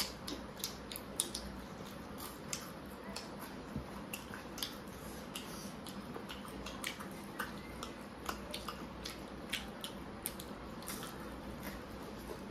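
Two people eating rice and dal with their hands, close to the microphone: wet chewing, lip smacks and fingers squishing food, heard as many irregular short clicks.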